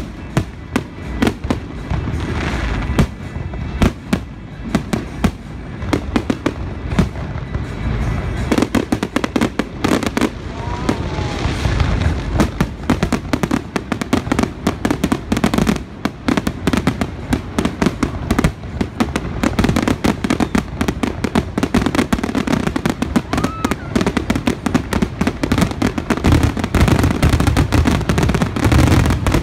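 Aerial firework shells bursting in a rapid, almost continuous barrage of bangs and crackles, typical of a show's finale. The barrage grows denser about a third of the way in and again near the end.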